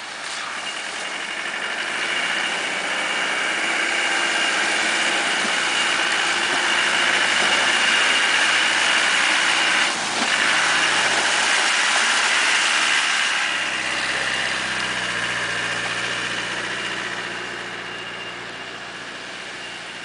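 Land Rover Defender 90 engine running at low revs while the vehicle fords a shallow river, with water splashing around its wheels. It grows louder as it comes close, the splashing stops suddenly about two-thirds of the way through, and the engine carries on at a steadier pitch, fading as it drives away.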